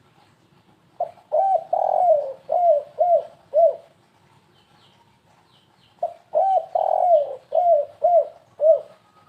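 Spotted dove (tekukur) cooing in the stuttering 'kuk 3 gagap' song, used as a lure call. There are two phrases about five seconds apart, each a quick run of about six low, falling coos with a longer, louder note near the start.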